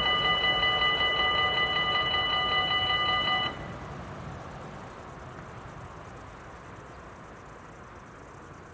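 Dutch level-crossing warning bells ringing rapidly as the barriers rise, cutting off suddenly about three and a half seconds in once the barriers are up. Crickets chirp steadily throughout.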